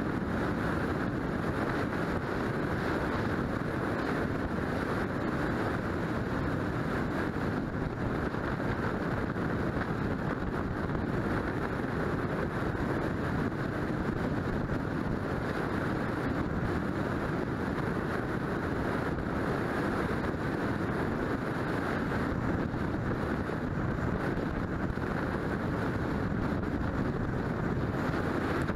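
Steady wind noise on the microphone of a hood-mounted camera, with tyre and road noise from a car driving along a paved highway. It holds level throughout, with no single event standing out.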